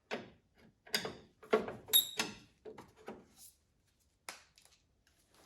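A string of irregular knocks and clicks from handling things, one about two seconds in ringing briefly like struck metal.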